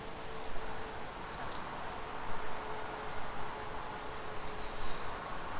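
Crickets chirping, short high chirps repeating at about two to three a second, over a faint steady hum.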